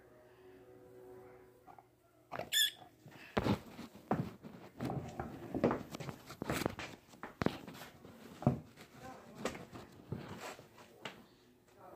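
Skateboard on a hard tiled floor: after a quiet start, irregular sharp clacks and knocks of the deck, wheels and shoes as the board is flipped and stepped on, beginning about two seconds in.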